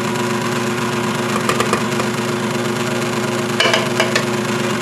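KitchenAid Ultra Power tilt-head stand mixer's motor running steadily, its flat beater mixing batter as dry flour mix is added. A few light clicks sound about a second and a half in and again just before the end.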